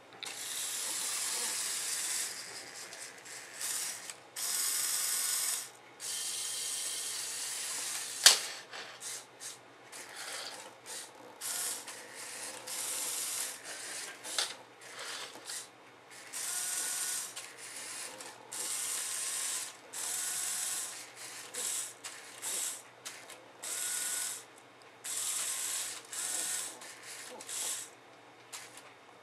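Electric motors and plastic gears of a remote-controlled Lego Technic tow truck whirring in short bursts, starting and stopping again and again as it is driven. One sharp click comes about eight seconds in.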